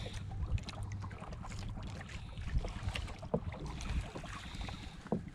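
Wind buffeting the microphone and sea water lapping against the hull of a small outrigger boat adrift, with scattered light knocks and clicks.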